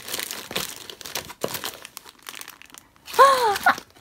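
Clear cellophane wrappers crinkling and crackling as packets are rummaged through and lifted out of a cardboard box. About three seconds in, a brief high 'ooh' from a voice, rising then falling, is the loudest sound.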